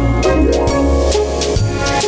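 Background music with a bass line and a regular drum beat.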